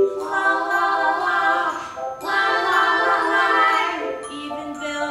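Sung music: voices holding two long wordless phrases over a light chiming accompaniment.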